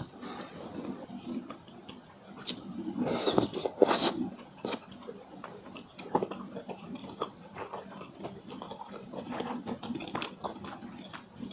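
Close-miked eating: a person chewing and biting food, with many small wet clicks and a louder noisy stretch about three to four seconds in.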